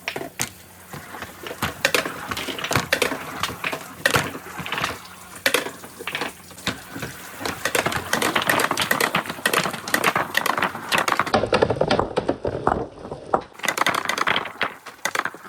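Marbles rolling and clattering along a marble run track: a continuous stream of quick clicks and rattles as the balls roll and knock against the track and each other.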